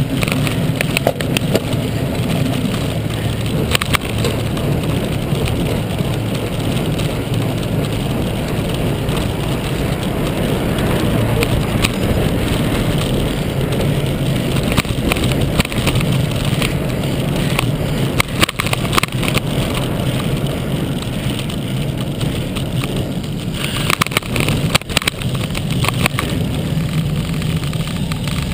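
Steady rush of wind and road rumble picked up by a camera mounted on a moving road bicycle, with frequent small clicks and knocks as the bike rolls over the road surface.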